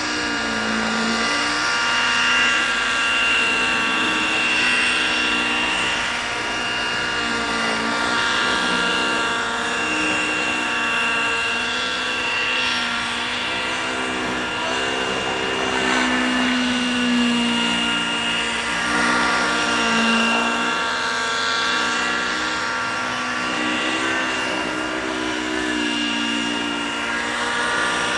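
Freya 90 radio-controlled model helicopter flying aerobatics, its .90-size glow engine and rotors running with a steady high whine whose pitch wavers up and down with the manoeuvres.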